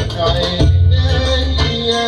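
Arabic belly-dance music: a keyboard melody that slides between notes over a loud, deep bass beat.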